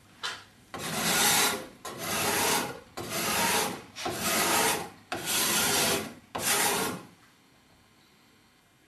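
Steel card scraper scraping a wooden board: seven rasping strokes, roughly one a second, that stop about seven seconds in.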